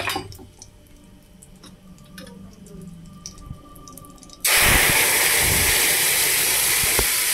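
Cumin seeds crackling faintly in hot ghee in a kadai, then, about four and a half seconds in, boiled moong dal is poured in and the hot pan bursts into a loud, steady hiss and sizzle of steam.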